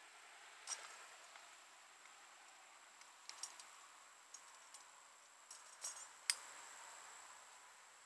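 Faint scattered clicks and rustles of a tree climber shifting about in the canopy, the sharpest click about six seconds in, over a faint steady high-pitched tone.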